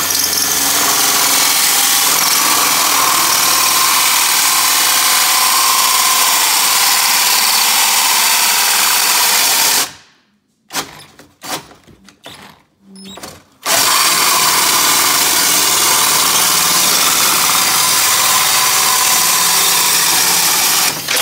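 A cordless DeWalt drill runs a large hole saw through a fiberglass dash panel, making a steady gritty cutting whir. About ten seconds in it stops for a few seconds, with a few knocks and clatters, then starts cutting again until just before the end.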